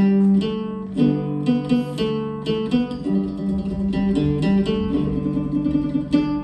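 Instrumental music carried by plucked string instruments, playing a steady melody of quick plucked notes.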